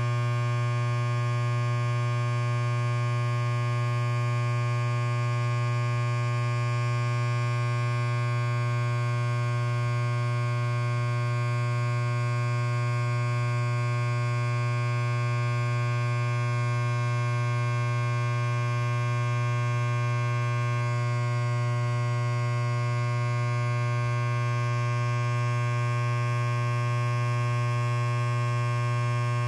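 Electric hair clipper running steadily: a constant buzz with a strong low hum and a stack of higher overtones.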